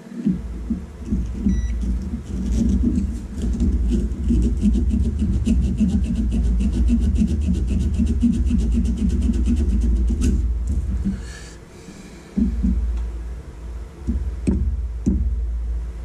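A strip of fine wet-and-dry sandpaper rubbed quickly back and forth between the contacts of a seatbelt-buckle microswitch, about five strokes a second, to clean dirt off contacts that are connecting badly. It runs over a steady low rumble that breaks off for a couple of seconds about ten seconds in, then resumes.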